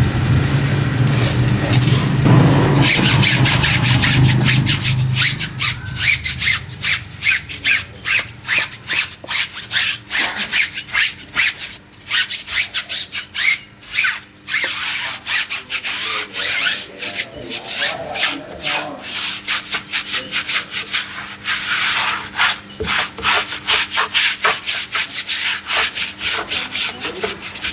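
A stiff brush scrubbing a vehicle surface in rapid, rhythmic back-and-forth strokes, with a low hum fading out in the first few seconds.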